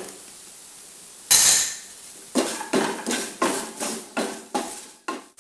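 A metal utensil clanks once against the pan, then scrapes and knocks it in a quick run of strokes, about three a second, as ground spices are stirred into oil.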